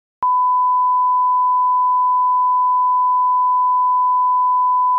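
Broadcast line-up test tone that goes with colour bars: a single steady 1 kHz beep. It starts with a click about a quarter second in, after near silence, and holds at one pitch and one level.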